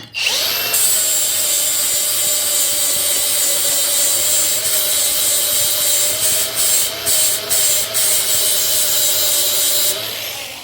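Handheld power grinder spinning up and grinding metal steadily, shaving a little more off so the disc-brake part fits, with a few brief let-ups and stopping near the end.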